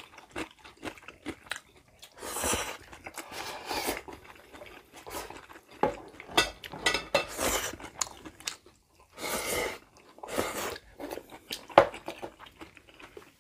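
Two people slurping and chewing jjapaghetti (instant black-bean-sauce noodles): several drawn-out slurps, with wet chewing and short clicks of chopsticks against the bowls in between.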